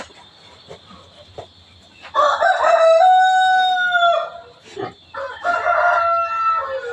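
A rooster crowing twice: a long crow about two seconds in, held steady and falling away at the end, then a second, shorter crow near the end.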